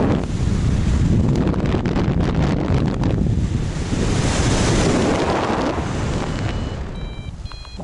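Loud wind rushing over the microphone of a paraglider in flight during steep banking turns, easing off near the end. As it drops, a flight variometer starts sounding short, repeated high beeps.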